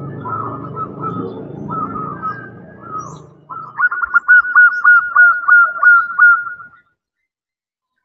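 Female zebra dove calling, the call used to attract a male. First comes a run of short cooing notes over a low hum, then about three seconds of loud, rapid, clipped notes, about four a second, which stop abruptly about seven seconds in.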